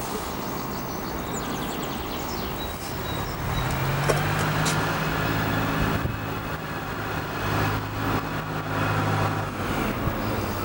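Jet engine noise of an Antonov An-158's two turbofans as it flies a display pass overhead: a steady rush with a low hum underneath, growing louder in the middle.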